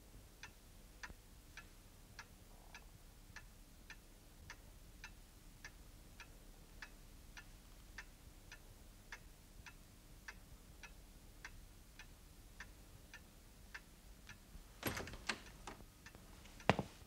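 Clock ticking softly and evenly, a little under two ticks a second. Near the end a few louder knocks break in over the ticking.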